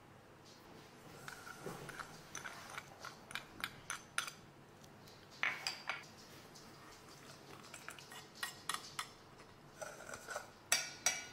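Metal spoon clinking and scraping against a stainless steel mixing bowl in scattered light taps, with a quick cluster of louder clinks near the end.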